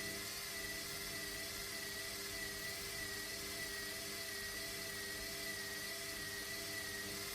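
Samsung washing machine running a Quick 29 programme at 30°: a steady motor whine with a high tone that wavers slightly, over a hum and a whoosh.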